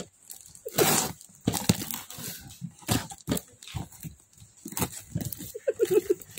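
A knife blade slitting the plastic wrap and packing tape on a parcel, then the wrap being pulled apart: irregular scrapes, crinkles and rips, the loudest about a second in, with a short squeak near the end.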